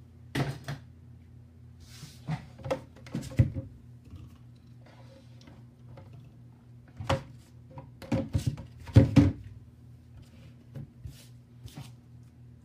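Scattered knocks, taps and clatter of objects being handled and set down on a table, in clusters, loudest about nine seconds in, over a steady low hum.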